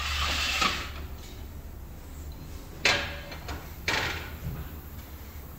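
Handling noises from engine assembly work: a short scrape at the start, then two sharp knocks about a second apart, over a steady low hum.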